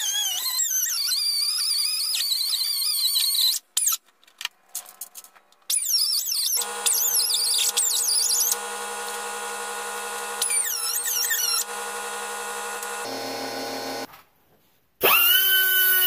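A pneumatic 3-inch cutoff wheel cuts through the rusted steel rocker panel of a car. It makes a high, wavering squeal while the wheel is in the metal. The tool stops and restarts several times with short pauses, and it starts up again with a loud hiss near the end.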